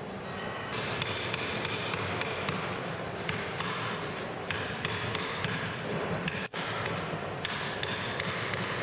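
Hand wood-carving chisel cutting into a block of wood, giving sharp, irregular taps and cracks about two or three times a second, over steady background noise.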